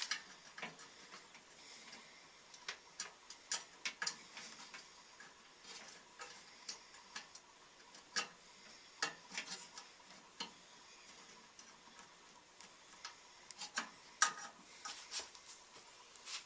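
Screwdriver work driving in the small screws that hold a microwave oven's replacement thermostat: faint, irregular metallic clicks and scrapes, a few at a time with short pauses between.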